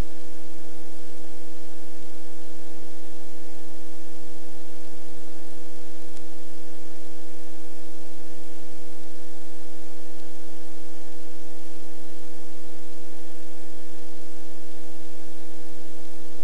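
Piston-engine helicopter idling on the ground while the engine warms up. Its steady noise fills the cabin, with a constant hum of several tones that does not change at all.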